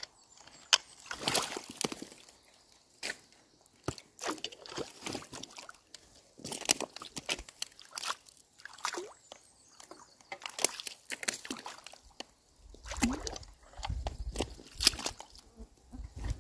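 Irregular sloshing and splashing of shallow muddy water, with sharp clicks and knocks, as a wooden stick is jabbed into the mud and sticks from a beaver dam are pulled out of the water. A low rumble comes in near the end.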